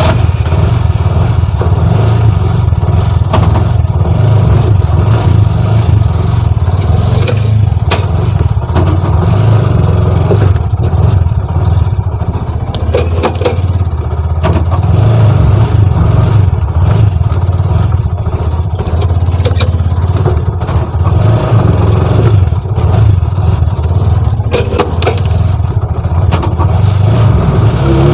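Bajaj CNG auto-rickshaw engine running steadily while it is put into reverse and backed up several times, with a few sharp clicks along the way. The reverse gear goes in without any grinding or crunching, because the reverse cable has been adjusted.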